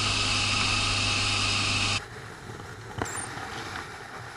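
Motorcycle on the move, heard from a camera mounted on the bike: a steady engine hum with strong wind noise. About halfway through it cuts off suddenly to a much quieter stretch of riding sound, with one faint click.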